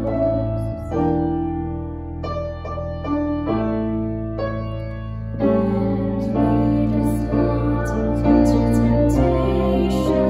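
Slow keyboard music: held piano chords over a sustained bass, changing every second or two.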